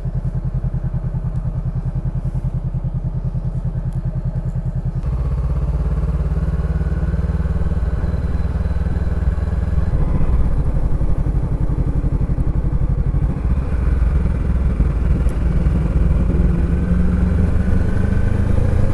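2017 Honda CB500X's parallel-twin engine idling with an even pulse, then, about five seconds in, running steadily under way at road speed.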